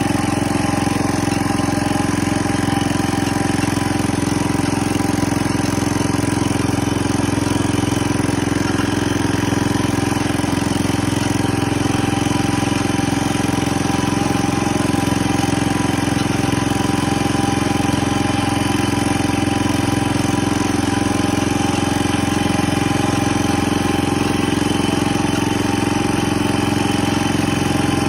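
1970 John Deere 140 H3 garden tractor's engine running steadily at a constant speed.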